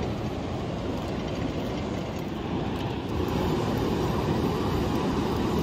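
Steady rushing noise of wind and breaking surf, a little louder from about three seconds in.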